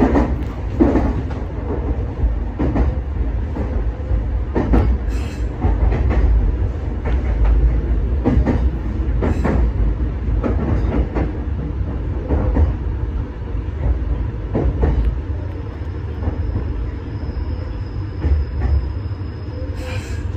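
Meitetsu 6800 series electric commuter train running, heard from inside the front car: a low rumble with irregular clacks as the wheels cross rail joints and the station points. About three-quarters of the way through, the rumble eases as the train slows into the station, and a faint steady high whine comes in near the end.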